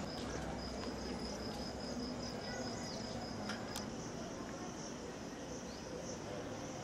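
Insects chirring outdoors: a steady, rapidly pulsing high-pitched trill, which shifts to a slightly higher pulsing trill about four seconds in, over a low background noise.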